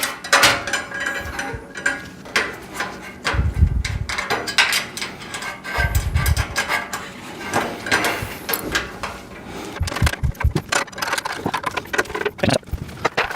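Steel parts-rack pieces and screws clicking and rattling as they are handled, threaded and fitted together, with two dull thumps about three and a half and six seconds in.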